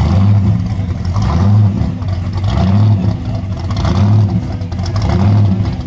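Early-1960s Chevrolet pickup's engine running as the truck pulls away, its low note swelling and easing about once a second with the throttle.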